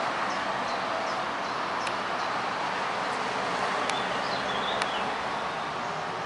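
Outdoor ambience: a steady rushing background noise with small birds chirping repeatedly and a few sharper, brief bird calls.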